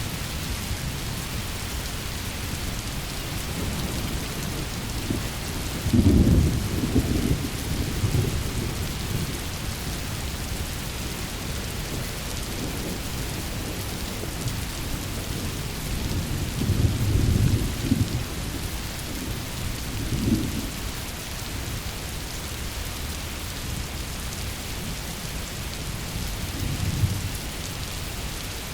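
Steady heavy rain with rolling thunder. A loud rumble comes about six seconds in, another around seventeen seconds, and smaller ones near twenty and twenty-seven seconds.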